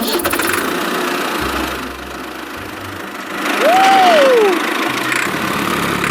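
A vehicle engine running steadily. A little past halfway, a single pitched sound rises and then slides down; it is the loudest part.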